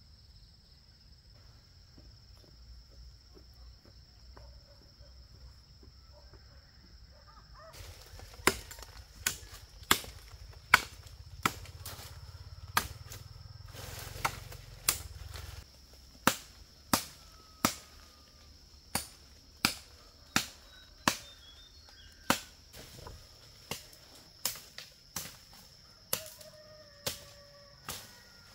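Wood being chopped with a blade: sharp, evenly paced chops, a little under one a second, beginning about a quarter of the way in. A steady high insect buzz runs underneath.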